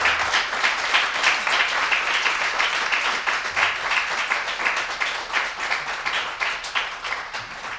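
Audience applauding and clapping, dense at first and gradually dying down. The last acoustic guitar chord fades out underneath in the first moment.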